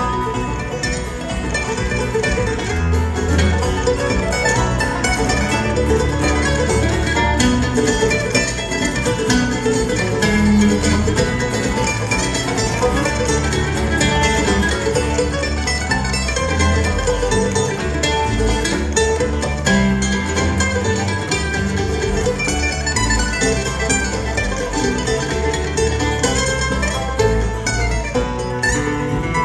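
Live bluegrass band playing a fast tune: picked banjo and acoustic guitar over an upright bass.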